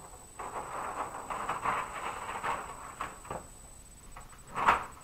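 Large flip-chart paper sheets rustling and crinkling as pages are lifted and turned over, with one sharper, louder slap of paper near the end.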